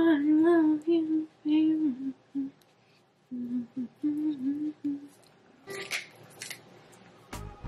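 A woman humming a TikTok song's tune with her mouth closed, in two short phrases of about two seconds each with a pause between. A few faint rustles follow.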